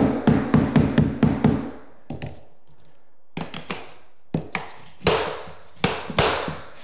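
A claw hammer tapping a vinyl plank in a quick run of light taps, about five a second, seating its click-lock joint. After a short pause come a few lighter taps, then two harder blows through a plastic tapping block to close the seam.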